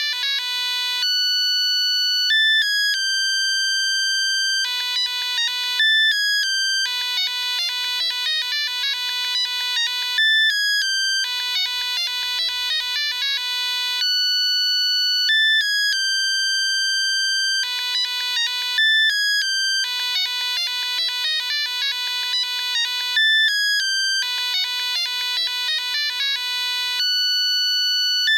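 Siemens C45 mobile phone playing a beeping electronic ringtone melody. A quick run of short notes and a held high note loop over and over.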